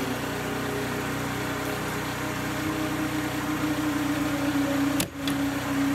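Steady low hum of a running motor or engine, made of a few held tones. About five seconds in it drops out briefly, followed by a single click.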